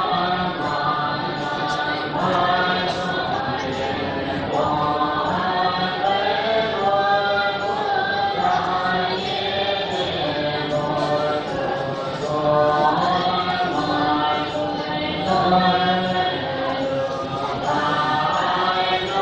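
Buddhist monks chanting, a steady melodic recitation in phrases of a couple of seconds each.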